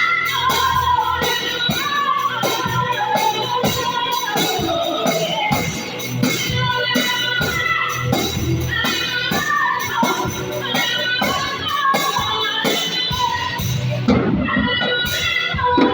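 Music: a voice singing melodic lines over a tambourine struck in a steady rhythm.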